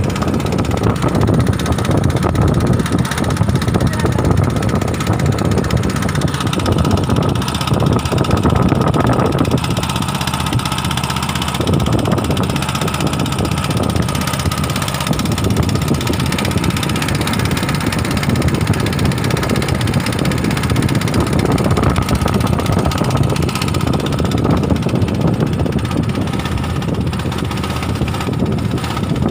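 A boat's engine running steadily with a continuous rumble.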